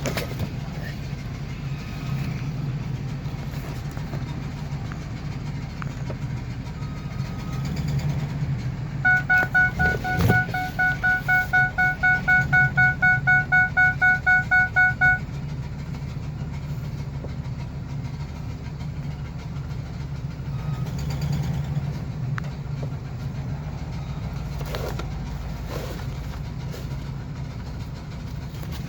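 A 2004 Ford E350 van's engine running steadily as it is driven slowly. Near the middle, a rapid electronic beeping sounds about three times a second for some six seconds, and there is one short knock.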